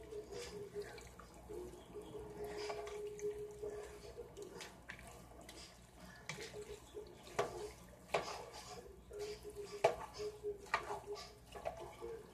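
A wooden spoon stirring and tossing sticky, cheesy spaghetti in a cooking pot: irregular wet squishing with sharp clicks of the spoon against the pot, over a faint steady hum.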